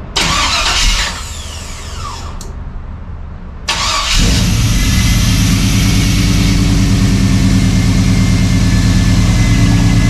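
Chevy C/K1500 pickup's throttle-body-injected engine cranking over, then catching about four seconds in and settling into a steady idle: the first start after the no-start, traced to an unbolted fuel pump ground wire, was cured.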